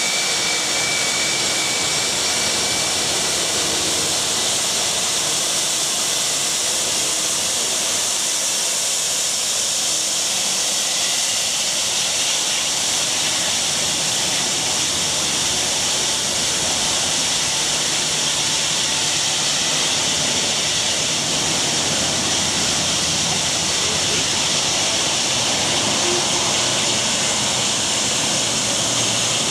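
Boeing 757-200 jet engines at taxi thrust, a steady high-pitched whine and rush as the airliner taxis past, with a thin whining tone fading out in the first few seconds.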